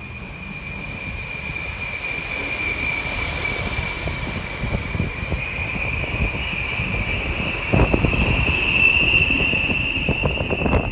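Regional passenger train running through a station platform without stopping: a steady high-pitched wheel squeal that rises slightly in pitch near the end, over the low rumble of the wheels, with a cluster of knocks about eight seconds in and more near the end.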